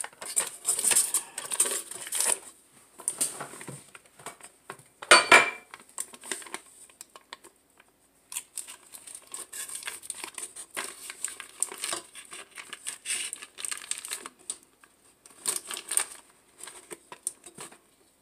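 A cream-cheese wrapper crinkling as a silicone spatula scrapes the cream cheese off it into a steel mixing bowl, with irregular small clicks and scrapes against the bowl and wire whisk. One louder knock comes about five seconds in.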